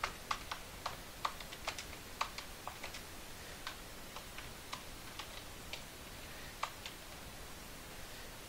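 Faint keystrokes on a computer keyboard, typed at an irregular, unhurried pace of single clicks, thinning out near the end.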